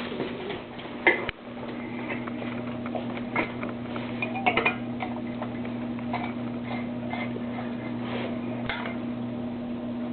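Light clicks and clinks of small metal parts being handled on a workbench, over a steady low hum that comes on about a second in.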